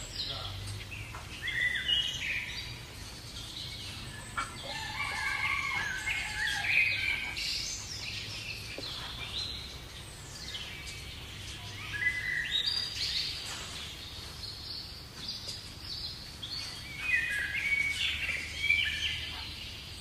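Many small aviary birds of several kinds chirping and calling, short twitters and whistled glides overlapping one another.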